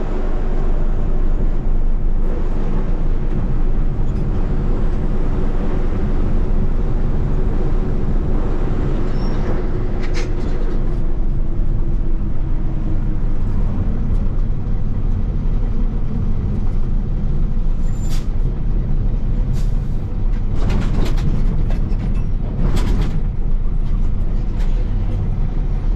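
Truck cab interior while driving: a steady low drone of engine and road noise, with a few brief clicks and rattles.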